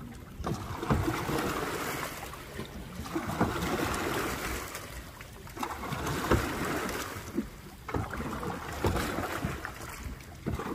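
Single-bladed canoe paddle pulled hard through lake water in repeated strokes, each one a splashing swoosh that swells and fades, about every two and a half to three seconds.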